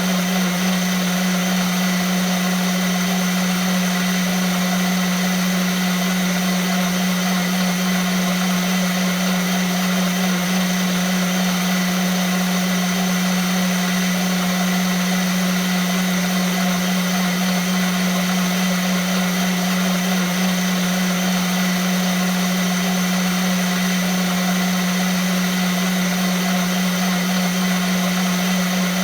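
Vitamix blender motor running steadily at constant speed, a loud even whir with a strong low hum.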